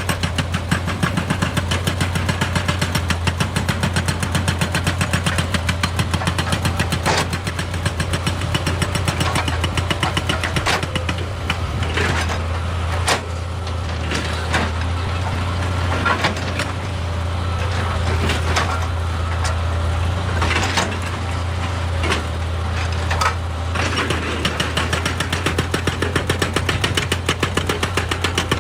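Excavator's diesel engine running steadily with a rapid, even pulsing over it. Sharp knocks of rock ring out now and then, most between about 7 and 23 seconds in.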